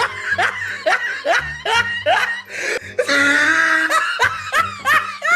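Laughter: a quick run of short rising 'ha' sounds, about two or three a second.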